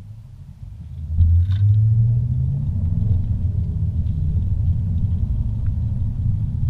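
Car engine and road rumble inside the cabin as the car pulls away from a stop: the low rumble rises sharply about a second in as it accelerates, then holds steady while driving.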